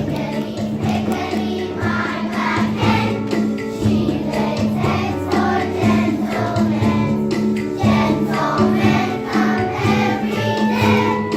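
Music: a group of voices singing together over an instrumental backing with a regular beat.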